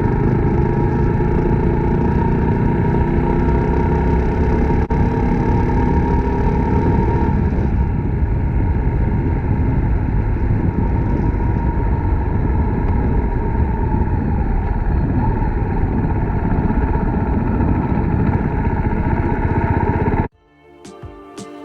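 Suzuki Grasstracker Big Boy's single-cylinder engine running as the motorcycle is ridden, under a loud rushing noise. The engine note climbs for the first several seconds, then holds steadier. It cuts off suddenly near the end, as guitar music begins.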